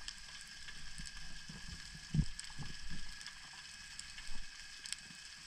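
Underwater ambience heard through a camera housing while spearfishing: a steady hiss scattered with fine crackling clicks and a faint steady high whine, broken by a few dull low knocks, the loudest about two seconds in.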